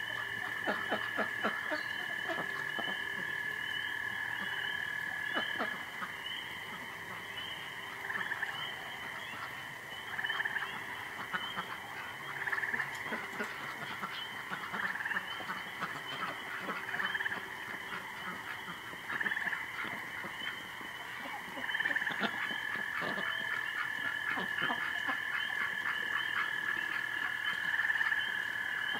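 Chorus of frogs calling at night: a steady, high, ringing chorus with rapid croaking notes coming and going over it.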